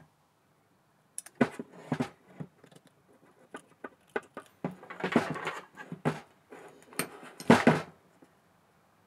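Handling noise of small metal lathe parts on a workbench: the Unimat SL's saddle and round steel bed rails being moved by hand, giving irregular clicks, light knocks and rubbing. The loudest knocks come about a second and a half in and near the end.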